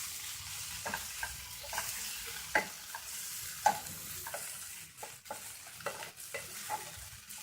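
Onion and tomato masala frying in a pan while being stirred: a steady sizzle, with the stirring utensil scraping and clicking against the pan every so often as the mixture cooks down into a paste with a little water.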